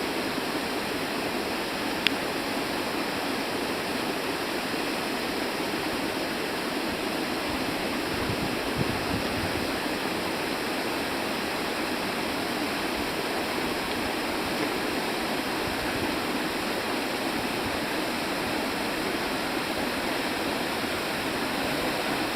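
Waterfall rushing: a steady, even roar of falling water, with a single click about two seconds in.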